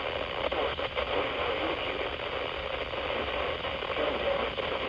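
Radio static: a steady crackling hiss, with a few sharper clicks about half a second to a second in.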